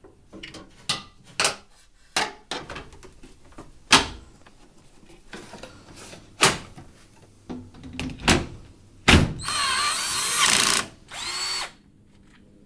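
Washing machine panels and the detergent drawer being pushed and clicked into place, a series of separate knocks and clunks. Then a cordless drill-driver runs for about a second and a half and once more briefly, driving in screws; these are the loudest sounds.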